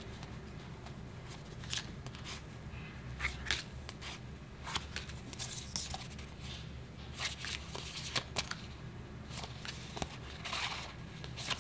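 A stack of die-cut stickers being flipped through by hand: irregular soft flicks and slides of the sticker cards rubbing against each other, over a faint steady low hum.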